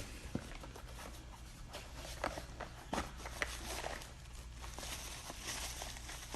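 Irregular light knocks, clicks and rustling from packing material and boxed parts being handled and unwrapped.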